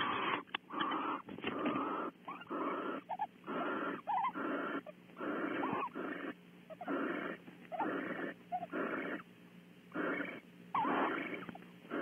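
Barn owls in a nest cavity giving a series of raspy hissing calls, roughly one a second, each about half a second long, with short chirping notes mixed in: the calls of a pair bonding. A faint steady hum underlies them.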